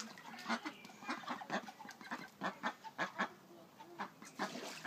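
Young ducks calling: a busy, irregular run of short peeping quacks, several a second.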